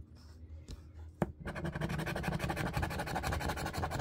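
A coin scratching the coating off a scratch-off lottery ticket in fast, continuous back-and-forth strokes, starting about a second and a half in after a couple of light clicks.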